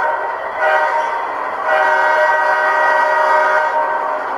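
Sampled diesel locomotive air horn from an ESU LokSound decoder, played through an HO-scale Kato C44-9W model's small speaker. It gives a short blast about half a second in, then a long blast of about two seconds.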